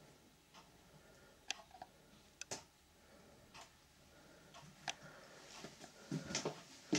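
Faint, scattered clicks and light knocks, about half a dozen spread over several seconds, with a few soft low thumps near the end.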